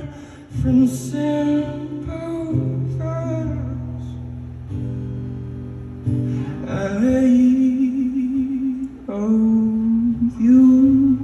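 A man singing a slow song to his own acoustic guitar accompaniment. About halfway through he moves into long held notes with a slight waver.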